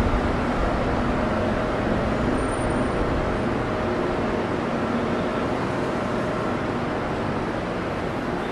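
Bangkok Skytrain train pulling into an elevated station, with a steady running noise of its motors and wheels that eases a little as it slows to a stop.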